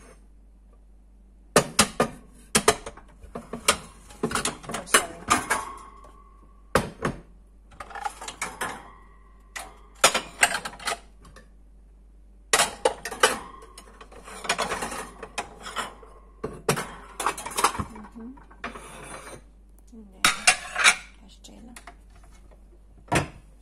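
Ceramic plates and bowls clinking and knocking against one another and the shelf as they are lifted, stacked and set down, in irregular clusters of sharp clinks with short pauses between.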